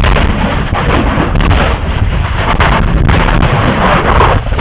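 Lava exploding where the flow meets the sea: a loud, continuous roar crowded with short blasts. Wind buffets the microphone.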